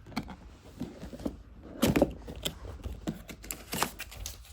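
A cardboard box and its packaging being handled and worked at by hand: scattered clicks, rustles and scrapes, loudest about two seconds in.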